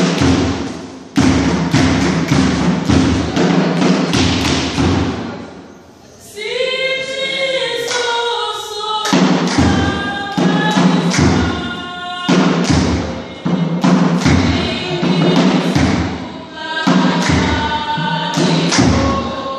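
Dance drumming: heavy, fast drum beats that break off about five seconds in, then a group of voices singing together, with the drumming coming back under the singing a few seconds later.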